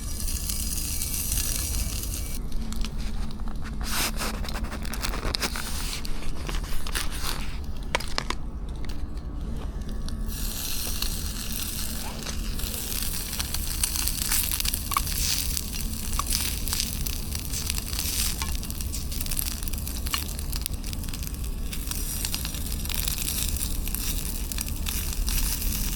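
A5 Wagyu steak sizzling and crackling as it cooks, with many small irregular pops. The crackling grows denser about ten seconds in.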